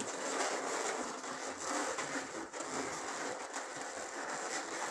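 Latex twisting balloons rubbing and squeezing against each other and the hands as they are twisted into shape: a steady, grainy rubbing.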